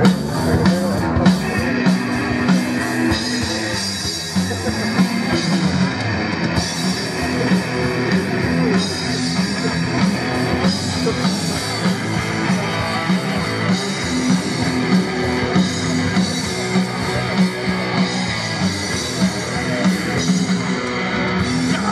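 Live rock band playing: electric guitars over a drum kit, with a steady, repeating low riff.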